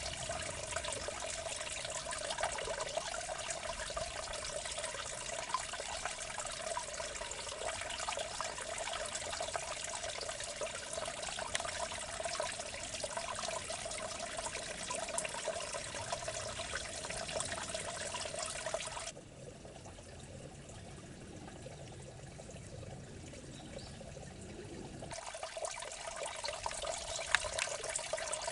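Water running and trickling steadily in a small irrigation ditch. Its sound turns quieter and duller for about six seconds, two-thirds of the way through, then returns.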